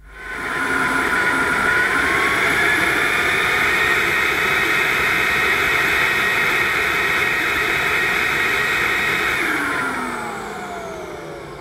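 AEG FX9 cordless vacuum cleaner's brushless motor running with the end of its hose on a suction gauge: it spins up, holds a steady whine for about nine seconds, then is switched off and winds down with a falling whine near the end.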